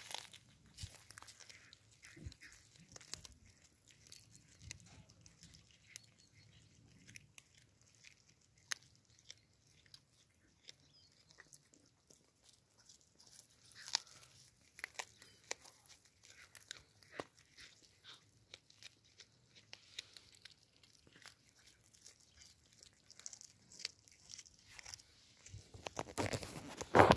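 Two cats chewing and crunching fresh small fish, a run of faint, irregular crunches and clicks. A louder burst of noise comes near the end.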